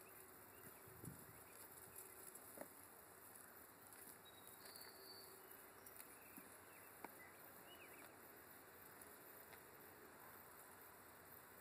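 Near silence: faint outdoor background hiss with a few soft clicks and a brief faint high chirp about halfway through.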